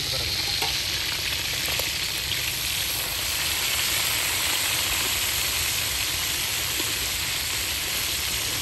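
Food frying in a cooking pot, a steady sizzle with no break.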